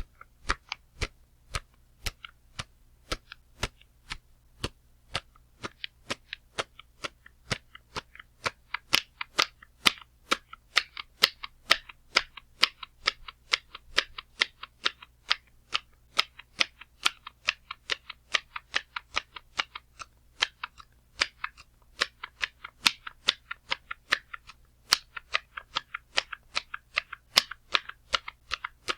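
A long series of sharp slams, one after another, about two a second at first and speeding up to roughly three or four a second.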